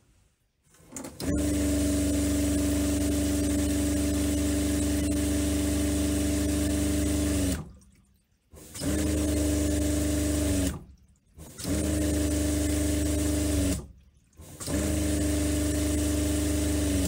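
Seaflo 42 Series 12-volt diaphragm water pump running with a steady, even-pitched hum and rushing water. It cuts out and restarts three times, the later runs only about two seconds each: the pump cycling on and off while a faucet draws water at partial opening.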